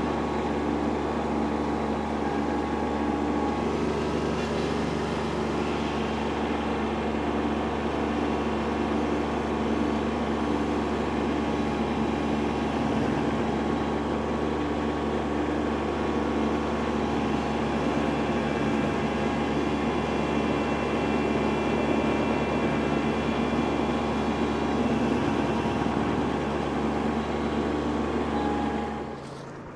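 Kubota B2601 compact tractor's three-cylinder diesel running steadily under load, driving a PTO stump grinder whose toothed wheel chews through a stump and soil. The sound drops away suddenly just before the end.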